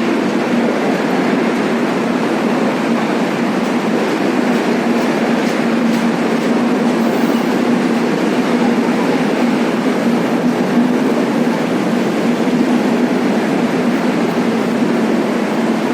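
Indian Railways Humsafar Express passenger train rolling into the station, its coaches passing with a steady, loud running noise and a constant low hum.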